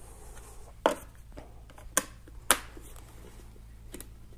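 Sharp plastic clicks and snaps of a DJI Phantom 1 radio transmitter being handled as its battery cover is clipped back on over fresh AA batteries. Three loud clicks fall about a second in, at two seconds and half a second later, with fainter ticks between and near the end.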